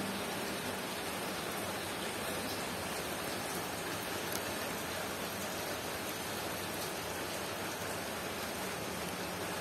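A steady, even hiss with no distinct separate sounds.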